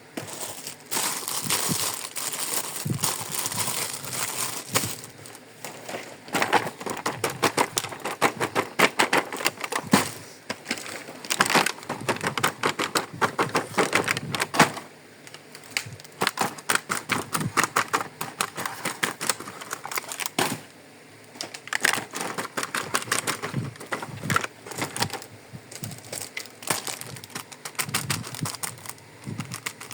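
Close-up unboxing of a plastic toy kitchen set: plastic packaging crinkling, and small plastic pieces clicking and tapping in quick runs, with a couple of brief pauses.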